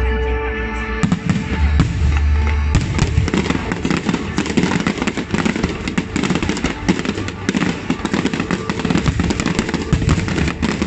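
Aerial fireworks bursting in a dense barrage: rapid, overlapping bangs and crackle that take over about three seconds in, after a few seconds of music with a heavy bass.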